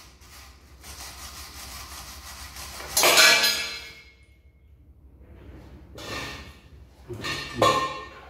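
Metal scraping and clanking as a spanner works the gearbox bell-housing bolts on a Land Rover Series 2A engine. The loudest is a sharp metallic clank about three seconds in that rings briefly, with shorter clunks near the end.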